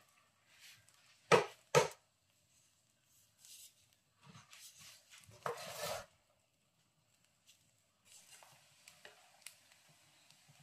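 Wooden spatula stirring fried rice in a frying pan: two sharp knocks about a second and a half in, then a few seconds of the rice being scraped and turned over.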